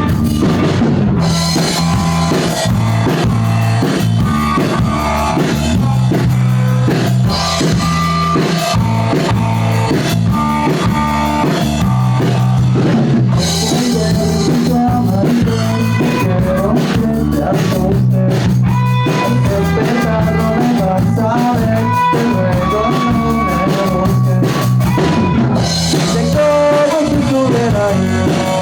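Rock band playing an instrumental passage of a song live, with drum kit and guitar keeping a steady beat.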